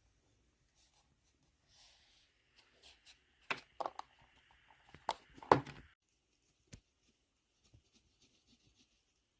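Small handling sounds: light scratching with a few sharp clicks and knocks, bunched together about halfway through, then a few faint ticks.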